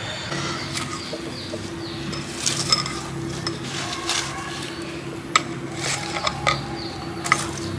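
Charcoal embers in a stone fire pit being raked and knocked with the metal head of a wooden-handled hammer: a run of light clinks and scrapes with several sharp knocks, over a steady low hum.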